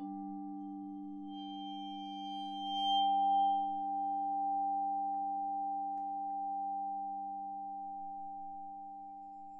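Vibraphone bars ringing in long sustained tones: a low note is struck with a yarn mallet at the start, and a bowed bar swells to its loudest about three seconds in, then settles into a long, slowly fading held tone.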